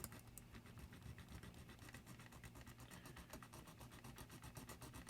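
Faint rasping of a small hand file shaving part of a diecast model car, in quick, even back-and-forth strokes.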